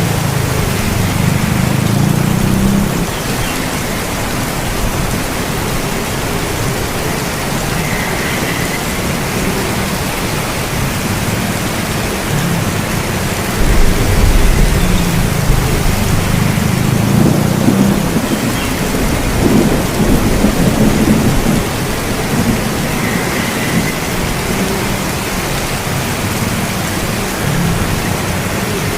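Steady heavy rain with thunder rumbling low beneath it; a louder, deeper roll of thunder comes in suddenly about halfway through and rumbles on for several seconds.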